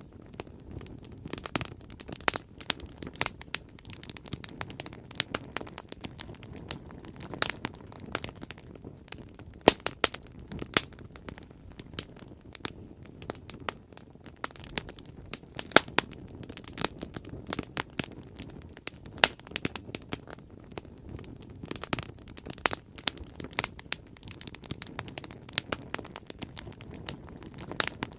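Bonfire burning: wood crackling with frequent sharp, irregular pops over a steady low rumble of the flames.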